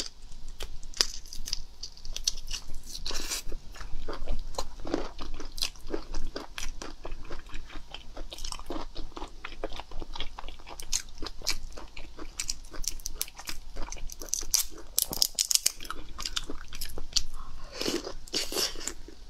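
Close-miked eating of raw black tiger prawn: wet biting and chewing with lip smacks, mixed with the crackle of shell being peeled off by hand. It comes as irregular sharp clicks, denser in a few short bursts.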